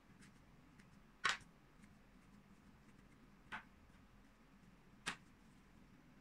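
Three sharp clicks over a low steady hum, the first the loudest, with a few fainter ticks in between.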